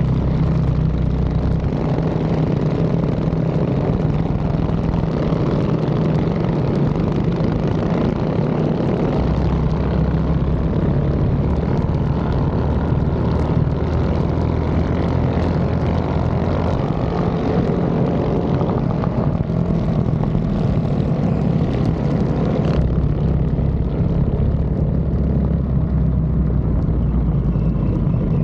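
Mini bike engine running steadily under way. Its low note shifts a few times, and the higher part of the sound drops away about three-quarters of the way through.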